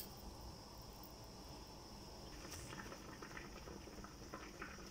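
Faint bubbling of a lidded pot of sinigang simmering over a gas flame, with small ticks and pops from about halfway, over a steady thin high hiss.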